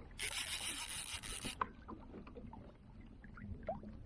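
Fishing reel drag buzzing with a rasping zip for about a second as a strong cutbow trout pulls line off against a tight drag, followed by faint scattered clicks.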